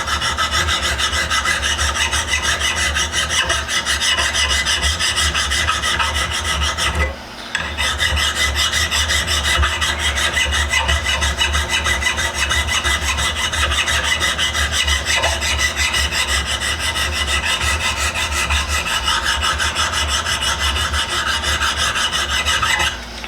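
An abrasive tool working over the tops of a small steel vise's jaws, dressing off burrs and imperfections. It is a steady, continuous rubbing, broken by a brief pause about seven seconds in and stopping just before the end.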